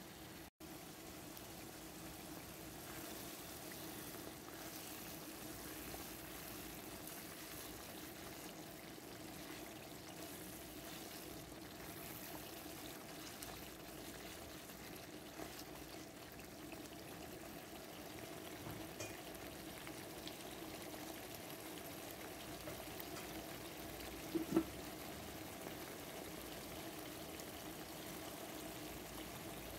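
Thick onion-tomato curry sauce bubbling and simmering in oil in a pan, faint and steady over a low hum, with one light knock near the end.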